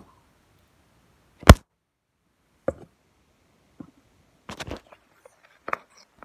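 Handling knocks and clatter of hard objects moved about on a counter: one loud sharp knock about a second and a half in, then a few softer knocks and taps spread through the rest.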